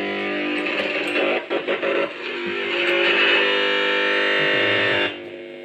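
Electric guitar music played through a Boss GT-10 multi-effects processor into an amplifier, after its RAM and DSP chips were replaced. It comes through clean, without the radio-like noise of the fault. The sound cuts off about five seconds in.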